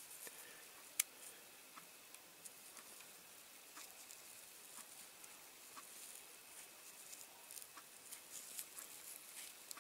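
Faint close handling noises: small ticks and scratches of fingers working at a tiny part on the bench, with one sharper click about a second in.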